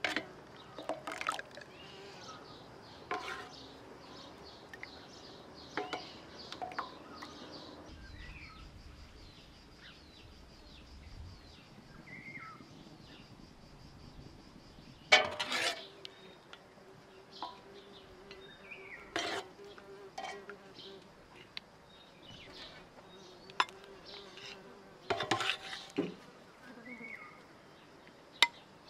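Scattered clinks and knocks of dishes and utensils, loudest about halfway through and again near the end, with a few bird chirps and a fly buzzing now and then.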